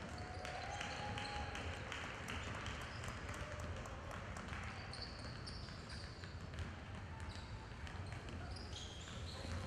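Indoor crowd ambience in a large hall: a steady low hum under faint voices, with scattered sharp clicks and taps throughout.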